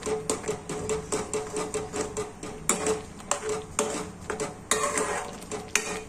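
Steel spatula scraping and clacking against a steel kadhai while stirring a thick masala gravy, in quick, irregular strokes several times a second, over a steady low hum.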